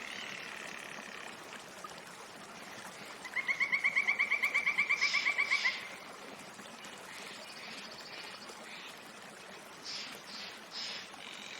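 Forest wildlife calling. A loud, rapid trill of about eight pulses a second lasts just over two seconds, with fainter high trills around it and three short, sharp calls near the end.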